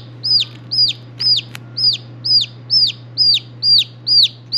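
A two-day-old chick peeping loudly and insistently, about two sharp peeps a second, each sliding down in pitch. Two short snips of scissors cutting plastic come through about a second and a half in.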